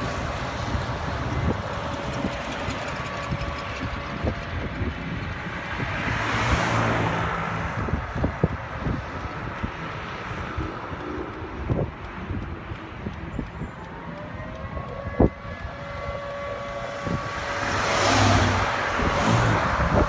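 Stormy wind noise over a steady low rumble, with two strong gusts about six and eighteen seconds in and scattered knocks; faint steady tones hum underneath.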